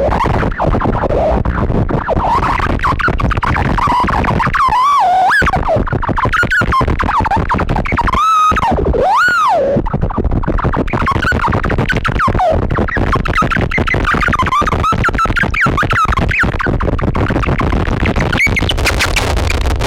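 Harsh noise music from a chain of effects pedals, among them Death By Audio pedals and a BOSS Metal Zone distortion: a loud, dense wall of distorted noise with squealing tones that swoop up and down in pitch, most clearly in two arcing sweeps near the middle.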